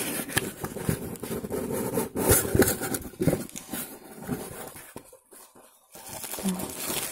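Cardboard postal box being opened by hand: the flaps scraping and rubbing, with a few sharp clicks. The sound drops off briefly about five seconds in, then the bubble wrap packing inside rustles as hands settle on it.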